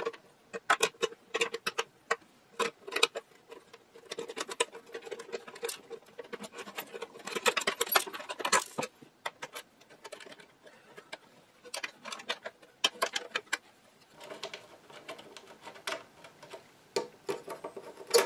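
Irregular clicks, taps and scrapes of small metal brackets and screws being worked loose inside an empty Bakelite radio cabinet and set down on the bench.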